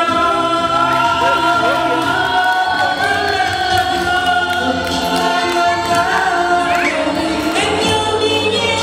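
A man and a woman singing a duet into microphones over an amplified karaoke backing track, with long held notes.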